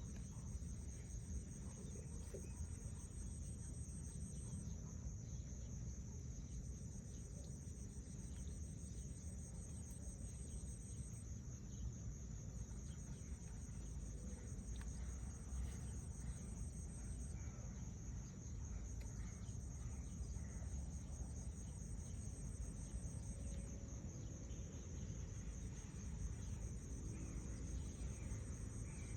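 Insects shrilling steadily in a high continuous drone, with a second, higher-pitched chorus that stops and restarts every five or six seconds, over a faint low rumble.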